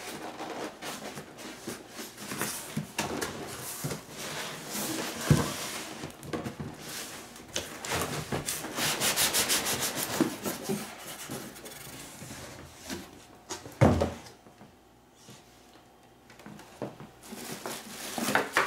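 Cardboard box and packing being handled: cardboard flaps and inserts scraping and sliding against each other in irregular rubs, with a fast rasping stretch about nine seconds in. Two sharp knocks, about five and fourteen seconds in, as the cardboard is set down or bumped.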